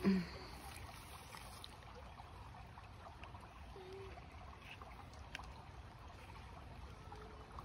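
Creek water flowing steadily, a low even rush, with one brief louder low sound at the very start.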